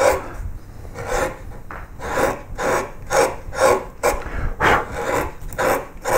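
A flat No. 3 carving gouge slicing across the grain of a wooden panel, levelling the background: a run of short scraping cuts, about two a second, each peeling off a curled shaving.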